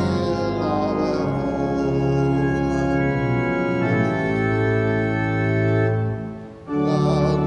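Church organ playing a hymn in sustained chords. There is a brief break between phrases about six and a half seconds in.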